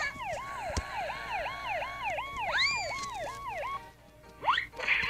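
Cartoon police-siren sound effect: a fast wail of about three falling sweeps a second that stops a little under four seconds in. A rising whistle-like glide sounds over it near the middle, and a short rising glide comes near the end.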